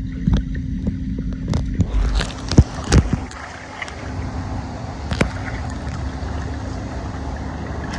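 Water sloshing and gurgling as a toy is pushed through a pool, with a few sharp knocks and clicks.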